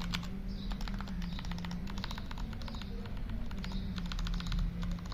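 Royal Kludge RK61 60% mechanical keyboard with red switches being typed on: quick runs of keystroke clicks, broken by a few brief pauses.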